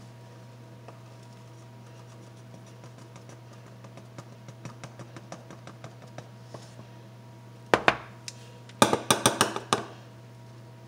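A dry ingredient being poured from a package into a glass measuring cup, a faint patter building up, then a quick run of sharp clinks and taps of the package against the glass near the end. A steady low hum sits under it all.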